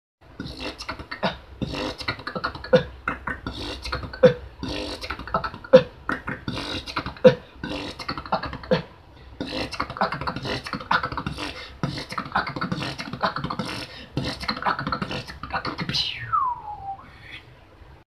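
One person beatboxing a fast rhythmic pattern of mouth-made kicks, hi-hats and snares, with a strong low hit about every second and a half, and a long falling sweep near the end.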